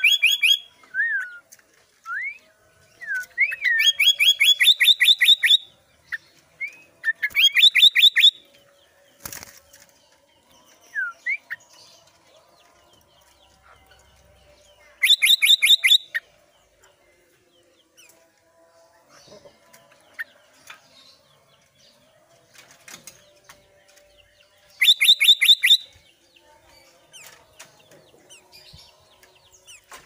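Albino sooty-headed bulbul calling from its cage. A few short whistled notes come first, then several short bursts of rapid, rattling chatter with long pauses between them.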